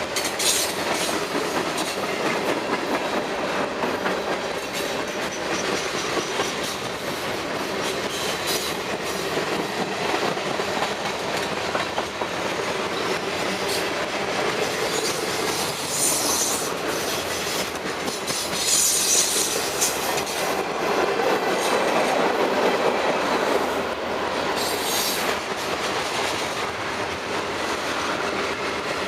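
Freight train rolling past, with the steady clatter of wheels over the rail joints. A high-pitched wheel squeal cuts in briefly about three times in the second half.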